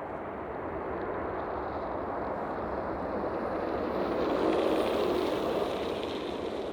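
Jet airliner on short final approach passing overhead, its engine noise swelling to a peak about four and a half seconds in and then fading.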